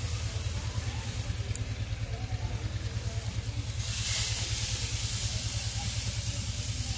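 Masala-coated fish pieces sizzling on a hot grill grate over charcoal in a clay tandoor; the hissing sizzle grows louder about four seconds in as more pieces are laid on. A steady low rumble runs underneath.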